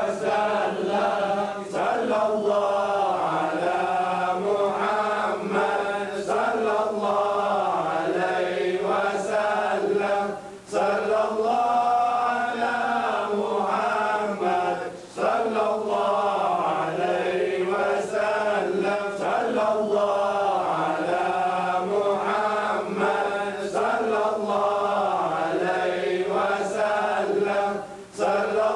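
Melodic Arabic religious chanting by a voice in long, drawn-out phrases, with short pauses for breath about 11, 15 and 28 seconds in.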